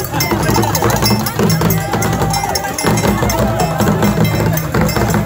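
Traditional procession music: a bell and drums playing a busy, quick rhythm, over crowd voices and chatter.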